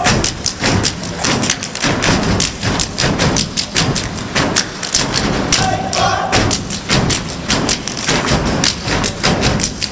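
Step team stomping and clapping in a fast, even rhythm of sharp thumps and claps, about four to five a second, with a brief voice calling out about six seconds in.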